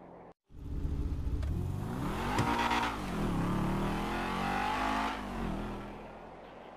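Sports car engine accelerating and passing by. After a brief cut to silence half a second in, the engine note rises in pitch, dips and rises again, is loudest in the middle, then fades away.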